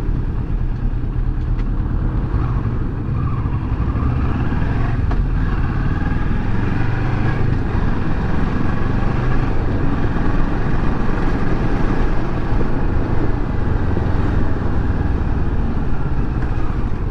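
Kawasaki Versys 650's parallel-twin engine running steadily as the motorcycle rides along at low street speed, with tyre and road noise.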